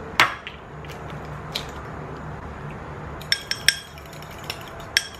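Eggs being whisked with a metal fork in a small glass bowl: a sharp knock near the start, then the fork clinking against the glass in a quick run of taps about three seconds in and once more near the end.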